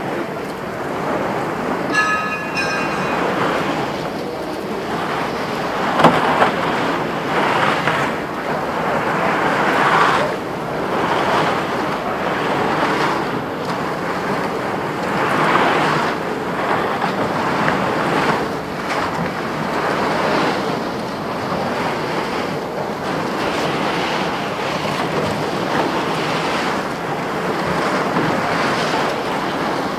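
Continuous rough scraping and rustling of plastic water kegs dragged on ropes over brick paving, heard close up through jacket fabric rubbing over the microphone. It swells and eases every second or two, with one sharper knock about six seconds in.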